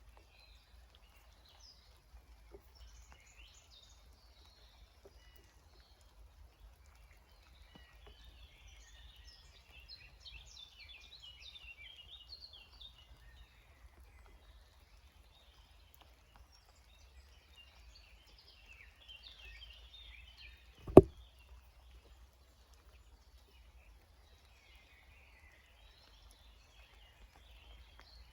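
Songbirds chirping and singing in scattered bursts over a faint low rumble, with one sharp, loud knock about three-quarters of the way through.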